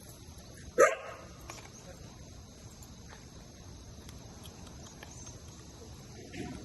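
A hunting dog gives a single sharp bark about a second in. After it, insects chirp steadily in the background.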